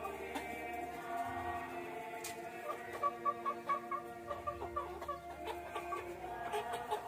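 Domestic chickens clucking, with a quick run of short repeated calls a little past the middle, over steady background music.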